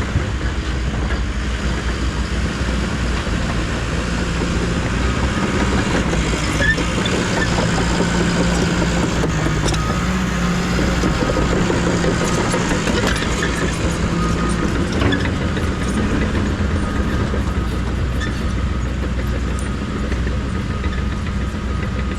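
Bulldozer's diesel engine running steadily under load while grading dirt, its pitch dipping and rising slightly as the load changes.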